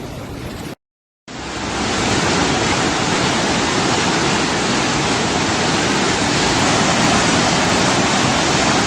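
A loud, steady rushing noise with no rhythm or pitch, like a storm or heavy rushing water. It drops out briefly near the start and swells back up over about a second.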